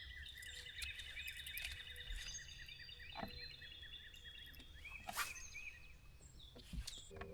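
Birds chirping, many short repeated notes overlapping, over a low steady rumble, with a few sharp clicks or knocks, the loudest just after five seconds in.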